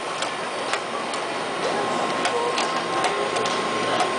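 Soda fountain dispensing into a cup: a steady hiss of pouring soda with a thin, steady hum, broken by several sharp clicks as the dispenser levers are pressed nozzle after nozzle.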